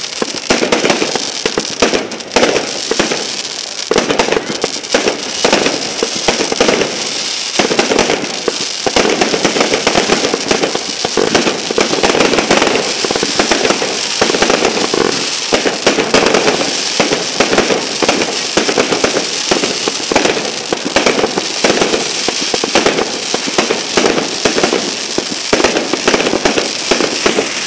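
Loud fireworks display going off in dense, rapid succession: a continuous barrage of bangs and crackles with no pause.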